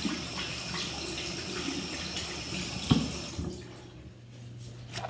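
Sink tap running as hands are washed under it. The water stops about three seconds in, right after a sharp knock.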